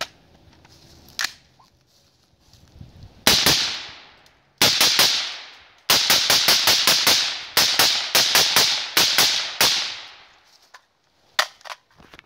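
Suppressed 10.5-inch AR-type short-barreled rifle firing 5.56 NATO rounds: one shot, then rapid strings of about twenty shots, each trailing off in an echo. A few sharp clicks come before and after the shooting.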